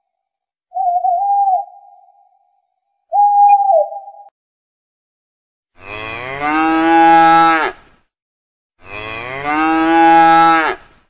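A cow mooing twice, two long, low moos about two seconds each in the second half. Before them come two short whistle-like hoots.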